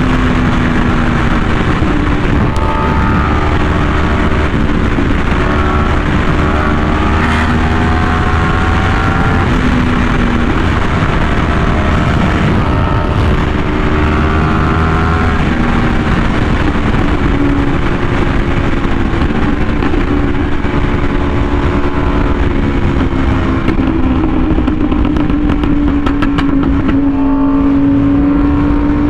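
Yamaha R1M's crossplane inline-four engine through an SC Project exhaust, pulling at steady high revs at speed, its pitch drifting only slightly and rising a little near the end. Heavy wind rush over the microphone runs under it.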